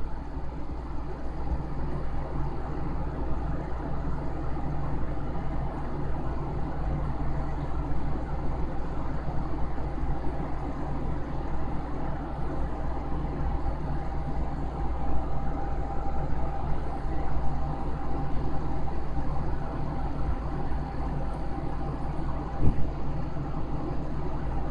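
Steady low mechanical hum with a faint steady whine. A single short knock near the end.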